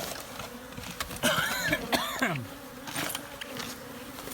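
Africanized honey bees buzzing in a steady, swarming hum. Between about one and two and a half seconds in, a few bees fly close by, their buzz bending up and down in pitch, with a few light knocks.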